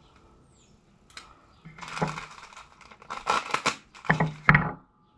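Paper packaging crinkling and tearing as it is opened, in a series of irregular bursts starting a couple of seconds in and loudest near the end.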